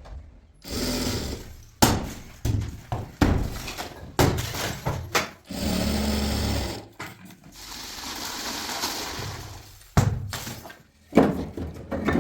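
Irregular knocks, bangs and breaking sounds of building or demolition work, with a steady machine-like noise for about a second and a half in the middle.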